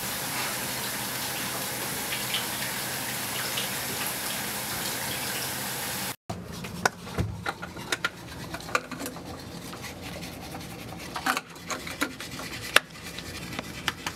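Water running steadily from a tap for about six seconds. It breaks off suddenly, and then come irregular scrubbing scrapes and small clicks of teeth being brushed at a bathroom sink.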